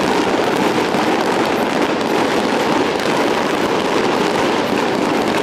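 Fireworks display going off: a dense, continuous crackle of many small pops and bursts at a steady loudness, with no single big bang standing out.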